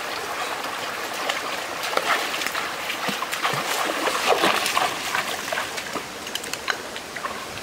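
Shallow rocky stream running, with splashing as people wade through the water, the splashes coming thickest in the middle.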